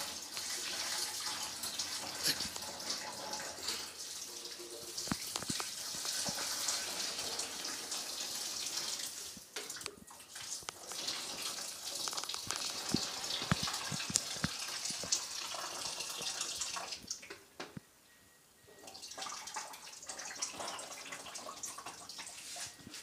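Hot cooking water being poured off boiled instant noodles into a sink, splashing steadily in spells, with a brief pause about nine seconds in and a longer one near the end, and a few light knocks of the pot.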